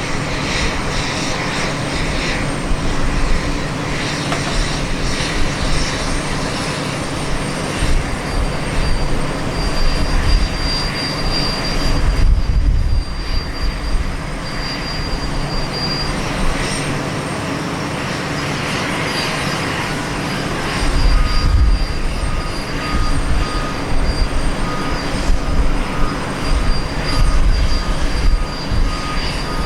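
Jet engines of a Boeing 787-9 airliner on approach, a continuous roar with a low rumble that swells and fades several times.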